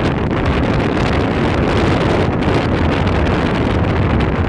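Strong wind blowing on the phone's microphone, a steady low rush, over rough waves washing around and across a pier's decking.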